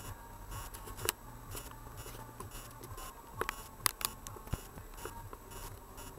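In-car noise picked up by a dashcam's microphone: a steady low hum with scattered sharp clicks and ticks, a few of them louder, about a second in and around the middle.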